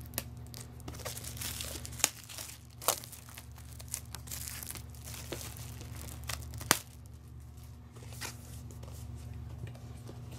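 Clear plastic shrink wrap being torn and peeled off a DVD box set, crinkling throughout, with sharp crackles about 2 and 3 seconds in and the loudest one near 7 seconds.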